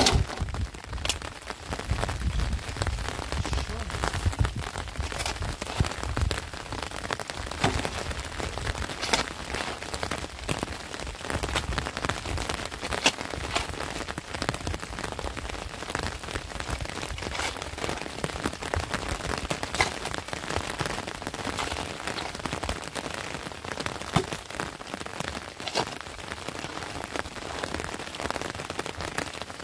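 Steady patter of rain with many small scattered drop clicks, over the scrape and knock of a shovel digging wet, stony mud and tipping it into a metal wheelbarrow.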